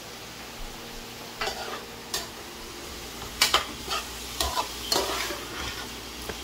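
Diced yellow squash sizzling in a large metal pot while a metal spoon stirs it, with several sharp scrapes and knocks of the spoon against the pot.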